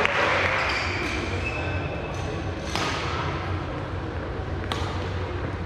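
Badminton racket strikes on a shuttlecock in a sports hall: two sharp hits about two seconds apart, over a steady low hum. A noisy burst fades out in the first second.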